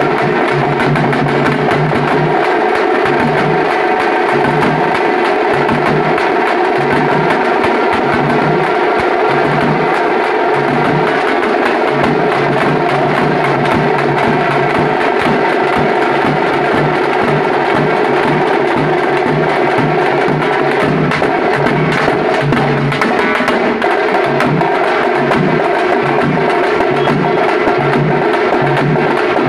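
Large handheld frame drums beaten with sticks in a continuous, even rhythm.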